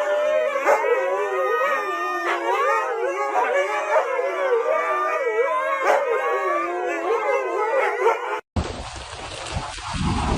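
A dog howling in long, wavering cries that bend up and down in pitch. About eight seconds in the sound cuts off and gives way to a steady rushing noise.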